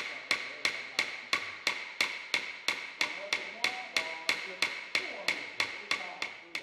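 Hammer pounding a brass strip on a small steel anvil in a steady rhythm, about three blows a second, each with a bright metallic ring: the brass is being beaten thin to make a qeej reed. The blows stop near the end.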